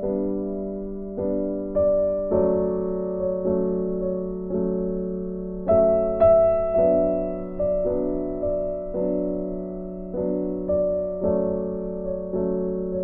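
Background piano music: slow, gentle notes and chords, each struck and left to fade, with a new one about every half-second to second.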